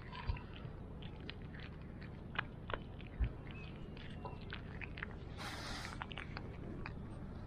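A cat chewing and biting raw chicken meat close to the microphone: irregular little clicks of its jaws and teeth. There are a couple of soft low thumps, and a brief hiss a little past halfway.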